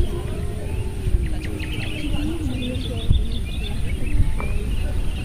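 Small birds chirping and trilling repeatedly, over a steady low rumble. A lower wavering tone runs under them for the first couple of seconds.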